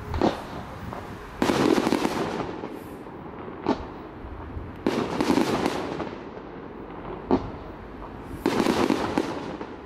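Fireworks display: aerial shells going off in a repeating pattern of a sharp bang followed about a second later by a longer, crackling burst lasting about a second, three times over.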